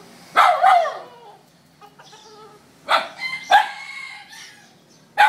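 Rooster squawking loudly in protest, in three separate outcries: about half a second in, again around three seconds, and once more at the very end.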